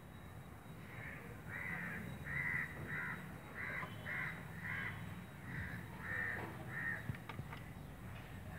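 A crow cawing about ten times in a steady run, close to two calls a second, with a few faint clicks after the calls stop.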